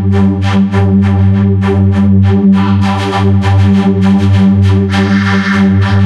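Loud electronic synthesizer music put through audio effects: a steady low drone under a fast, choppy pulsing of about five to six beats a second.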